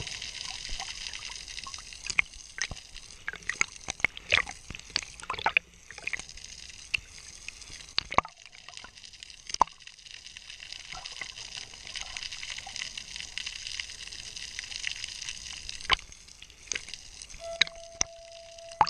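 Underwater sound heard through a diving camera's waterproof housing: a steady hiss with a quick run of clicks and pops a few seconds in, then scattered single clicks.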